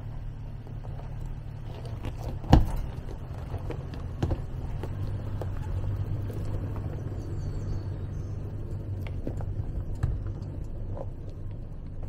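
Toyota 4Runner's V6 engine running at a low, steady crawl with a rumble, the tyres knocking over loose rocks, including one loud sharp knock about two and a half seconds in.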